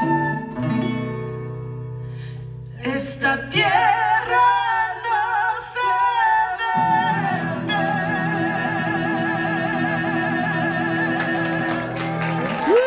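Live band playing the closing bars of a Latin song: a singer holds long notes with a wide vibrato over sustained low chords, and the music ends at the very end.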